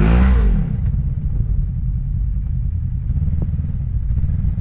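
Off-road vehicle engine revving hard, its pitch sweeping up and down, and cutting back about half a second in. After that a low, steady engine rumble carries on.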